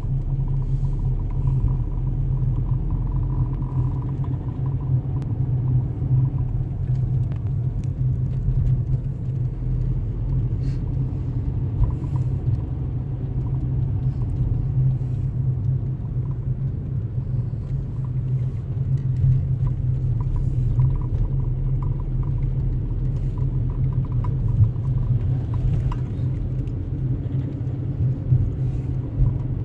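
Steady low rumble of a car's engine and tyres, heard inside the cabin while driving slowly.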